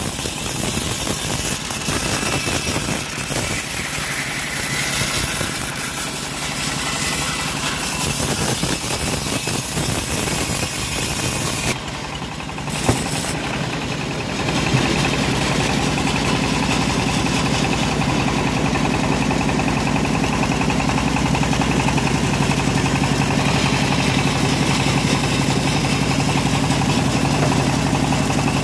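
Homemade band sawmill running, its blade sawing lengthwise through a hard jowar log. About halfway through, the rough, noisy sound gives way abruptly to a steadier, even drone.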